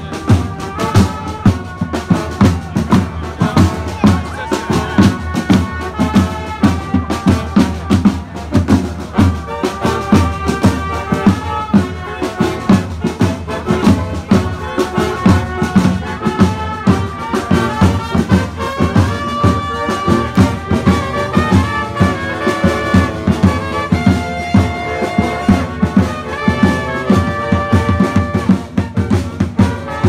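Live brass band playing: trumpets, trombones and sousaphone over a steady drum beat.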